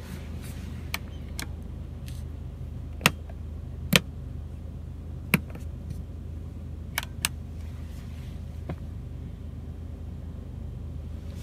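A handful of sharp, separate plastic clicks from the fold-down clothes hook in the headliner being pulled down and snapping back, over a steady low hum in the car cabin.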